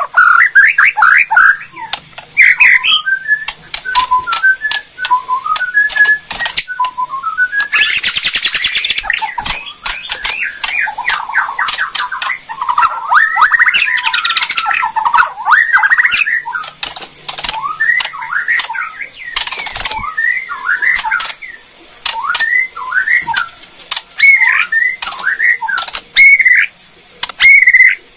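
White-rumped shama singing: varied whistled phrases and rising runs of notes, broken by dry rapid clicking and crackling rattles, the 'kretekan' call. A dense rattle comes about eight seconds in.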